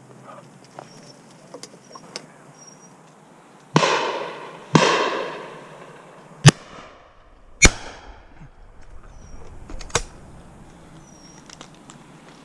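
Shotgun shots, five in all. The first pair comes about four and five seconds in, each trailing off in a long echo. A sharper, louder pair about a second apart follows at around six and a half seconds, and a last shot comes about ten seconds in.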